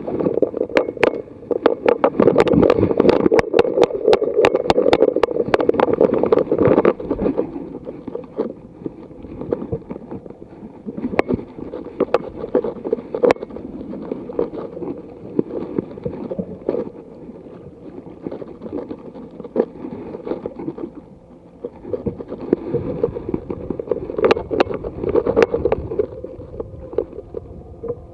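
Knocks and clatter in a small wooden boat over a steady low hum. The sound is busiest in the first seven seconds and again about 22 seconds in.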